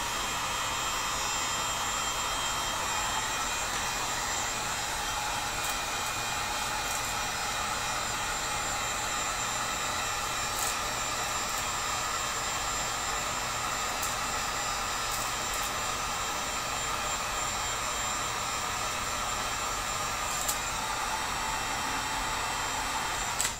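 Electric heat gun running steadily, its fan blowing hot air onto a half-inch PVC pipe plug to soften it for shaping. It switches off suddenly at the end.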